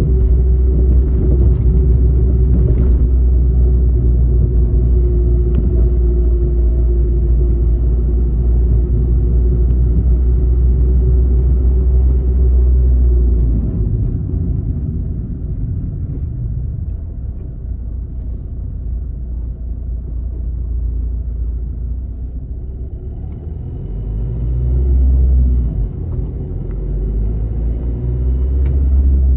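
Road and engine noise of a moving car heard from inside the cabin: a steady low rumble with a faint humming tone, easing a little about halfway through and building again near the end.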